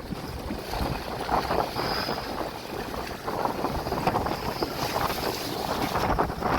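Wind buffeting the microphone in gusts, a loud rumbling rush.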